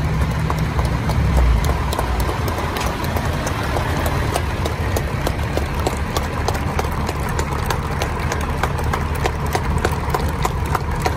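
Fire truck engines idling with a steady low rumble, with scattered handclaps coming through.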